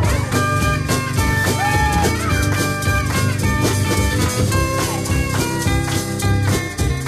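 Instrumental passage of a 1980s rock song: a guitar lead line with bent notes over bass guitar and drum kit.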